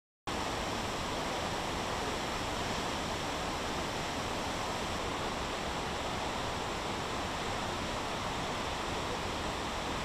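Tortum Waterfall's heavy flow of falling water rushing steadily, cutting in suddenly just after the start.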